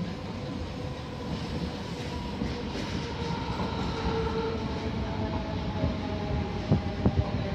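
Red regional electric multiple unit pulling into the station, its running gear rumbling under a steady whine of two tones that slowly fall in pitch as it slows. There are a few sharp wheel clacks over rail joints near the end.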